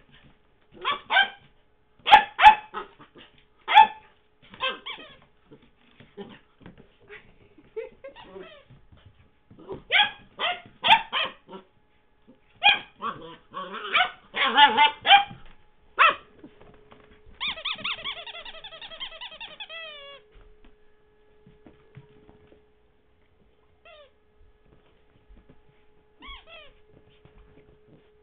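A rubber squeaky toy squeaked in quick irregular bursts as a Labrador puppy chews it, with one longer wavering squeal about two-thirds of the way in and only a few faint squeaks after.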